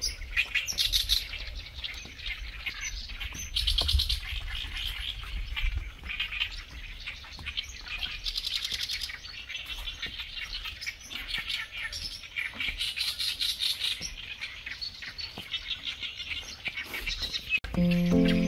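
Many wild songbirds singing and chirping together in a busy, overlapping chorus. A low rumble comes and goes underneath, and background music starts near the end.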